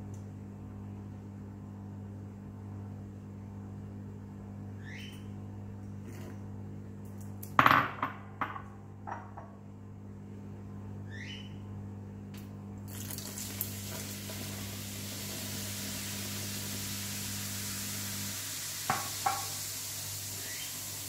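Dishes clattering on a stone countertop, a few sharp knocks about eight seconds in. From about halfway through, a steady fizzing hiss: white vinegar reacting with baking soda in the sink drain and foaming up. A low steady hum runs underneath.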